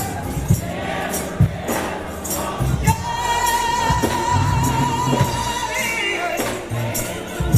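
Gospel music: singers with instrumental backing and a steady beat, one long high note held from about three seconds in until near six seconds.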